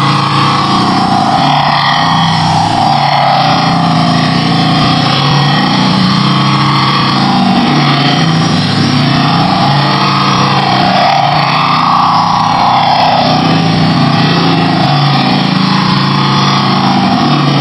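A synthesized 'space sound' drone: a loud, unbroken, rumbling hiss with tones that slowly swell and waver every few seconds.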